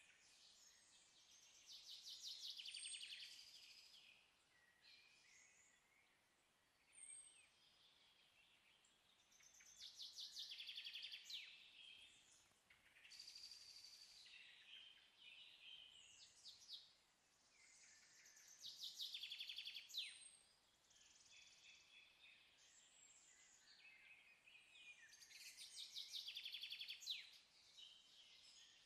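Faint birdsong: a small songbird singing rapid trilled phrases that recur about every seven or eight seconds.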